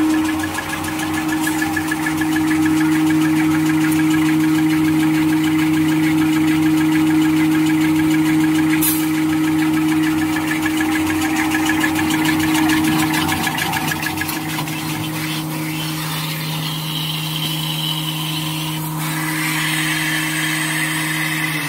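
Three-line V-fold paper hand towel folding machine running at speed: a steady low hum under a dense, fast mechanical rattle, with one sharp click about nine seconds in.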